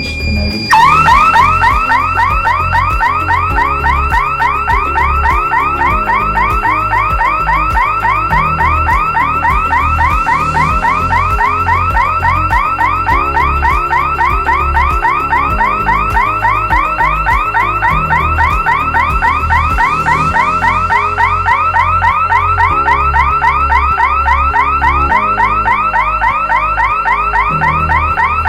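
Electronic alarm sounder on a fire extinguishing control panel. Just under a second in, its steady tone gives way to a loud, fast-repeating rising sweep, several sweeps a second, which keeps going until it stops right at the end.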